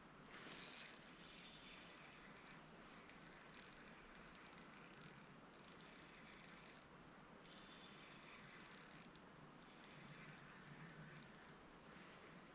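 Faint rapid clicking of a fly reel's click-and-pawl ratchet as line is reeled in, in several runs with short pauses between.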